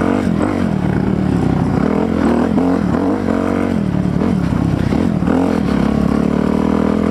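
Kawasaki KLX300R dirt bike's single-cylinder four-stroke engine running hard under a rider. Its revs rise and fall several times through the middle, steadier at the start and near the end.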